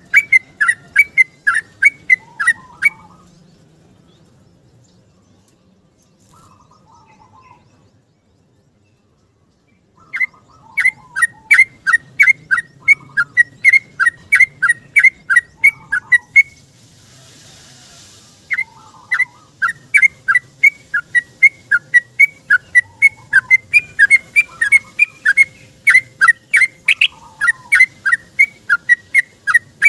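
Yellow-vented bulbul (trucuk) singing its long rolling song: fast runs of clear whistled notes, about three a second. There is a pause of several seconds early on and a brief break around the middle.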